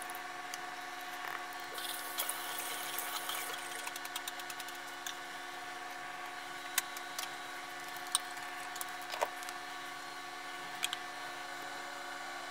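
A steady machine hum with several pitched tones runs throughout. About two seconds in comes a second or so of hissing splash as sodium carbonate developer solution is poured into a plastic tub. After that come scattered light clicks and taps of a utensil against the tub.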